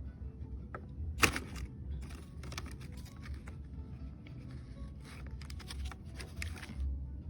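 Handling noises: a sharp click about a second in, then a run of rustling and scuffing.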